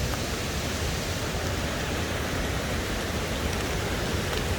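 Steady rain falling: an even hiss.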